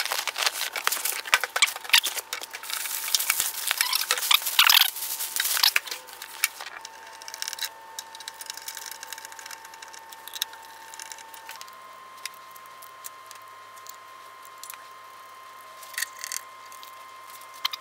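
Cardboard box flaps and plastic packing being rustled and crinkled as the machine is lifted out, loud in bursts for about the first six seconds. After that come faint handling clicks and light metal taps as parts are fitted.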